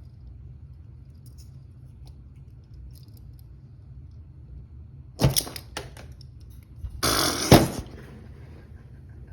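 Metal handcuffs being handled and worked with shims: faint small clicks over a steady low hum, then a sharp metallic clack about five seconds in, and a louder rattling scrape about seven seconds in that ends in a hard knock.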